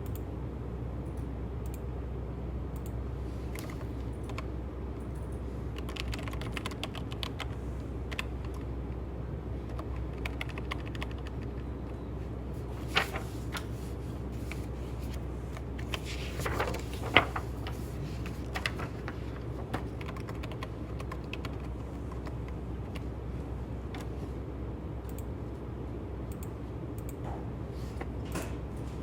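Typing on a computer keyboard: an irregular run of light key clicks over a steady low hum, with a couple of louder key strikes midway.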